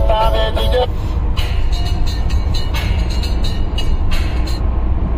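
Steady low rumble of road and tyre noise inside the cabin of a Kia Seltos driving on a highway, with sharp ticks scattered through it. Music from the car stereo ends about a second in.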